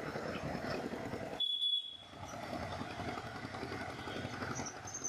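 Steady outdoor background rumble of road traffic. About a second and a half in, the rumble cuts out for half a second while a short high tone sounds.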